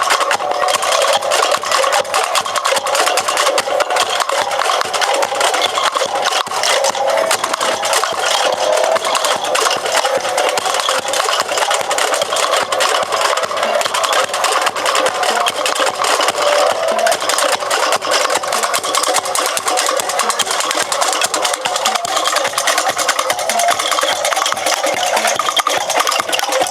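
Street-dance percussion band playing a fast, continuous rhythm of rapid, dense strikes.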